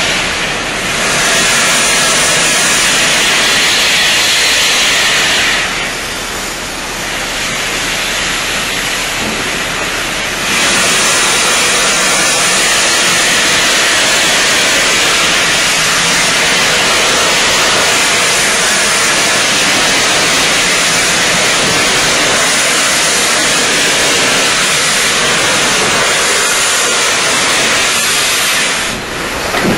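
Steam locomotive letting off steam: a loud, steady hiss of escaping steam that eases a little about six seconds in and comes back at full strength about ten seconds in.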